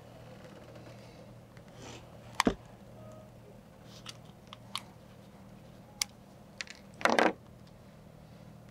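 Small plastic clicks and rattles from a boat's circuit breaker being handled and its housing pulled apart after its rivets were drilled out. There is one sharp click about two and a half seconds in, a few lighter ticks, and a short rattling scrape about seven seconds in, over a faint low hum.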